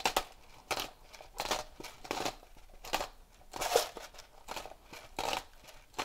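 Hand-twisted salt grinder grinding salt in repeated strokes, a short gritty crunch about every three-quarters of a second.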